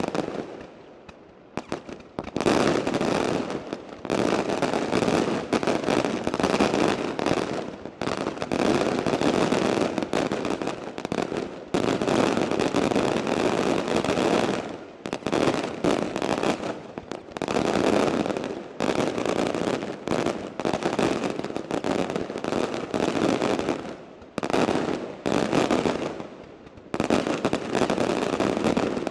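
Maltese daylight fireworks battery: aerial bursts going off in rapid, near-continuous strings of bangs and crackling reports, with brief lulls about a second in and twice near the end.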